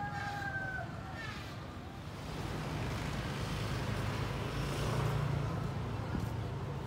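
A rooster crowing, its call trailing off about a second in, over a steady low rumble of street traffic. After that a steady rushing noise takes over and swells about five seconds in.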